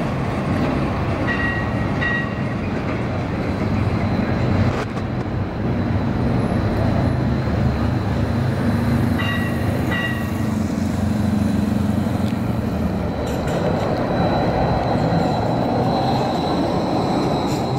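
Battery-electric First Hill streetcar running down the street toward the listener and passing close, a steady low rumble over city street noise. A thin high whine grows stronger as it passes in the last few seconds, and short paired beeps sound twice.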